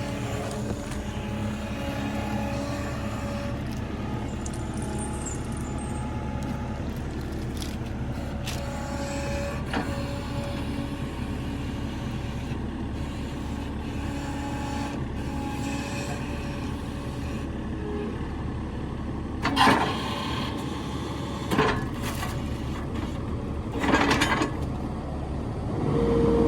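An engine runs steadily at low speed, with three short loud bursts of noise in the last third.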